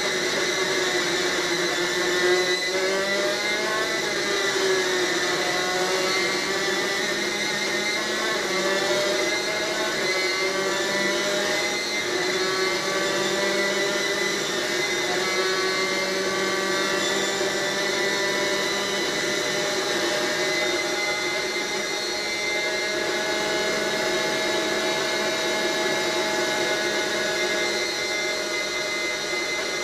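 Superkart's two-stroke racing engine at speed, heard onboard, its high-pitched note climbing again and again and dropping back in between.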